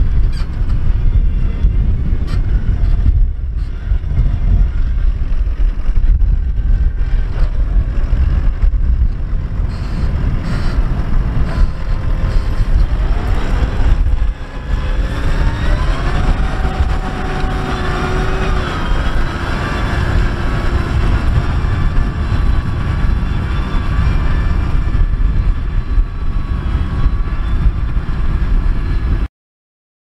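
New Holland T6.160 tractor's diesel engine running under load while pulling a reversible plough through the soil. About halfway through, a whine rises in pitch and then holds steady as the tractor and plough pass close by; the sound cuts off suddenly just before the end.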